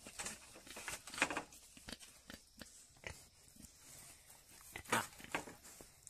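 Pigs moving about a concrete-floored pen, nosing at the ground: scattered short scraping and clicking noises, loudest about a second in and again near the end.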